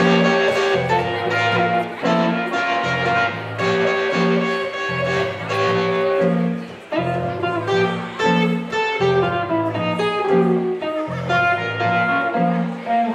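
Instrumental break of a blues-style song played live on hollow-body electric guitar and keyboard, over a repeating low bass figure.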